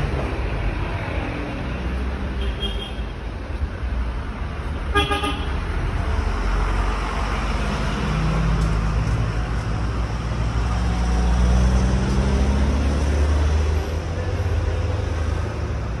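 Road vehicle engine running with a steady low rumble, its note slowly climbing around the middle, and a short car horn toot about five seconds in.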